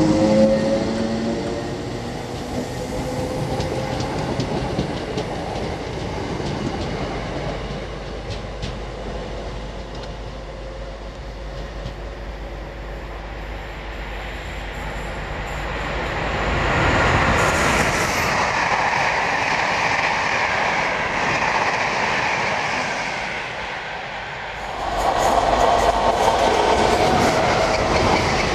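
An electric multiple unit pulling away with a falling whine, then a second electric unit running in. About three seconds from the end, a container freight train starts passing close by with the clickety-clack of its wagon wheels over the rail joints.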